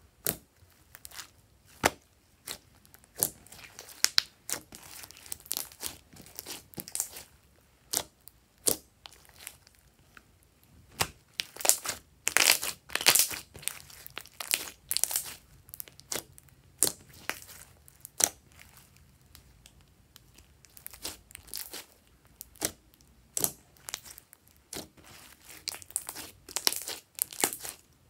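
Thick glossy slime being pressed, poked and stretched by hand, giving irregular sharp pops and crackles with a dense cluster around the middle.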